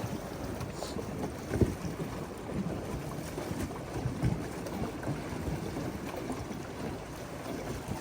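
Wind on the microphone and water noise around a boat on the water, with a few dull knocks, the loudest about one and a half seconds in.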